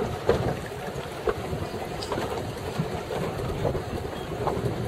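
Choppy water slapping against a powerboat's hull in irregular knocks and splashes, about one a second, over steady wind noise on the microphone.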